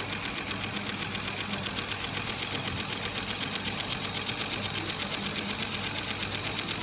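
Industrial wetsuit sewing machine running steadily, its needle stitching in a rapid, even rhythm over a steady motor hum.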